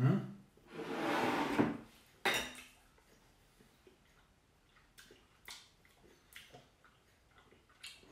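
Tableware handled while eating: knife and fork clinking against a plate, and a ceramic salad bowl scraping across the wooden tabletop for about a second, with a sharper clatter just after. A few light clinks of cutlery follow.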